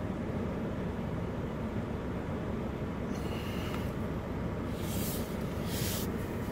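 Steady low rumble, with brief hissy swells about three, five and six seconds in.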